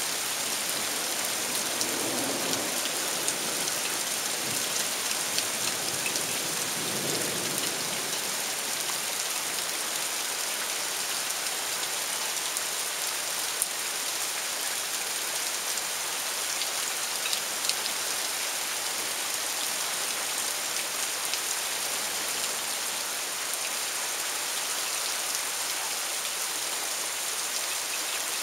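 Steady storm rain, a dense even hiss with scattered small drop ticks. Two faint lower swells sound about two and seven seconds in.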